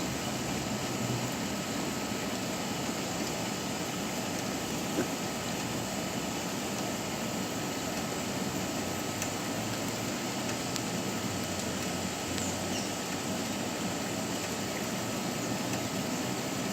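Steady rushing noise of a storm, with a few faint, brief high bird chirps and a single click about five seconds in.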